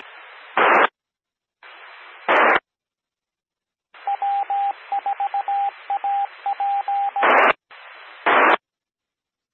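Amateur radio repeater keyed up with a hissing carrier, sending its Morse code identification as a steady tone beeped in dots and dashes for about three seconds. Short bursts of static come as transmissions drop: the repeater's squelch tails.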